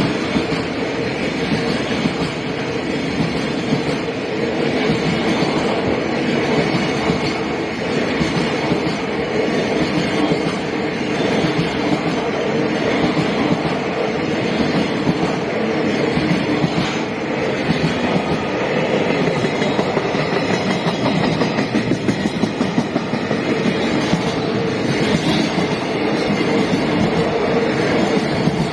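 Freight train passing over a level crossing, its wagons rolling by without a break and the wheels clattering on the rails.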